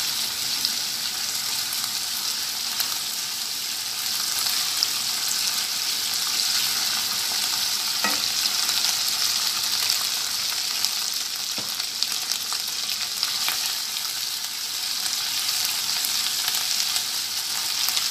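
Onion paste with ginger, garlic and cumin paste sizzling in hot oil in a nonstick pan as it is sautéed, stirred with a silicone spatula. A steady frying hiss with a few light taps of the spatula.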